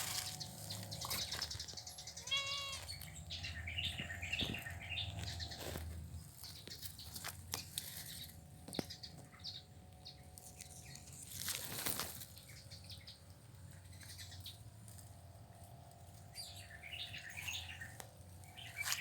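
Faint cat sounds: short high chirping calls, the clearest a quick run of rising-and-falling calls about two and a half seconds in, with scattered soft clicks.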